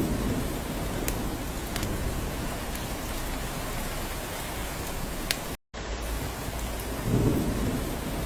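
Steady rain falling, with sharp individual drops ticking now and then and a short low rumble of thunder at the start and again about seven seconds in. The sound cuts out completely for an instant about five and a half seconds in.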